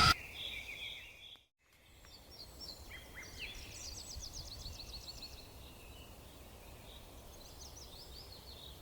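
Faint birds chirping and trilling over low outdoor background noise. A loud machine sound cuts off right at the start, and the audio drops to dead silence for a moment about a second and a half in.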